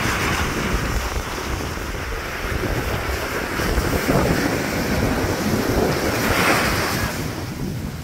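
Small waves breaking and washing up a sandy shore, surging louder twice and easing off near the end, with wind rumbling on the microphone.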